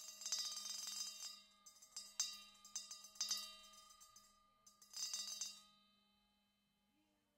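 A rusty circular saw blade, hung on a wire, struck by a solenoid beater and ringing like a bell with several overtones. A fast roll of strikes comes in the first second, then shorter clusters of hits, and the ringing fades away about six seconds in. A low steady hum runs underneath.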